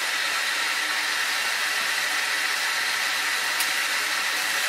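Electric motor of an indoor shooting range's target carrier, running steadily as it draws the paper target back along its overhead track towards the booth: a constant whine with a hiss.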